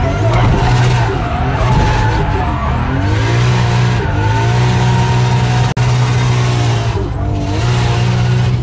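Drift car's engine heard from inside the cabin, held at high revs with brief dips in pitch as the throttle comes off and on, over loud tyre and road hiss.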